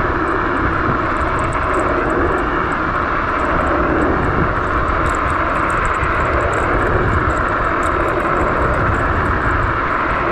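Steady rush of wind over the camera's microphone, mixed with tyre noise on rough, cracked asphalt, as a VSETT 11+ electric scooter rides at high speed.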